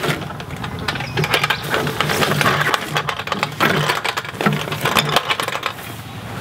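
Yardbird chicken plucker's steel stand and stainless drum rattling and clanking as it is wheeled over grass and set upright: a rapid, uneven run of clicks and knocks.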